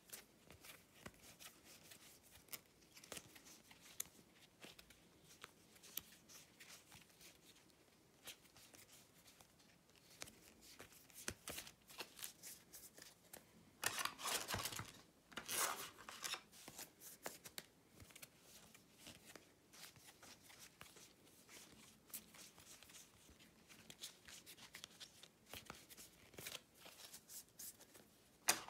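Board-game cards and small pieces being handled and set into a 3D-printed box insert: scattered light clicks and rustling, louder for a couple of seconds around the middle.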